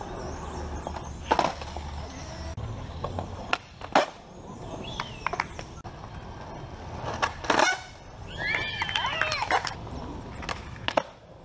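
Skateboard wheels rolling on concrete, with sharp clacks of the board popping and landing as flatground tricks are tried, the loudest about four seconds in and about seven and a half seconds in. High, bending calls are heard near the end.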